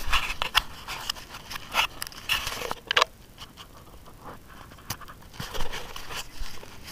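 Scraping, rubbing and clicking handling noise from an action camera held close to the body, its case knocking and brushing against clothing and skin in irregular bursts.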